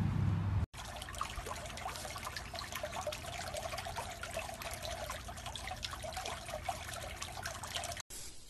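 Swimming-pool water trickling and lapping, a steady splashy trickle with many small drips, after a brief low rumble that cuts off under a second in. The water sound stops abruptly near the end.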